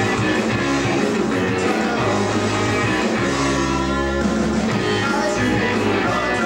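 Live British beat band playing: electric guitar, bass guitar and drums, with a singer. About halfway through, a chord is held for about a second.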